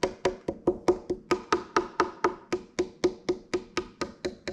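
Fingertips tapping quickly and evenly on the top of a stripped Harley Benton HB-35 Plus semi-hollow guitar body, about four to five light knocks a second, each with a short pitched ring from the hollow body. It is a tap test for spots where the top is not glued down to the centre block.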